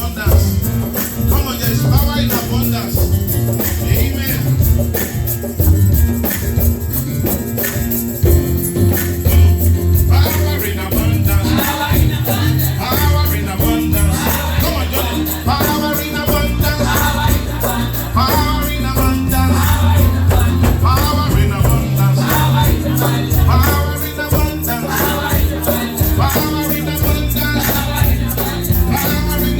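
Live church band music with heavy bass and a steady shaker rhythm, with voices singing over it from about ten seconds in.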